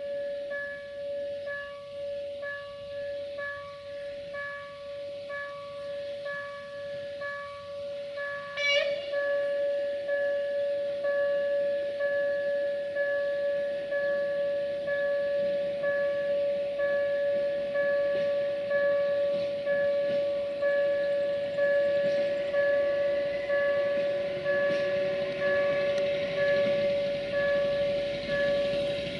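Level-crossing warning signal sounding: a steady electronic tone with higher tones pulsing on and off. About nine seconds in there is a short rising squeal. Then the rumble and hiss of a slow-moving rail maintenance vehicle and its herbicide-spraying wagon grow under the signal.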